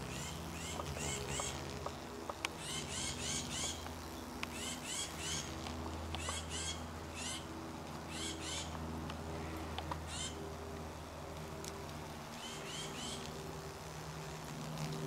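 Hummingbird clearwing moth's wings giving a low, steady hum as it hovers and feeds, swelling and fading as it moves among the flowers. A bird sings in the background, quick high chirps in short groups repeated every second or so.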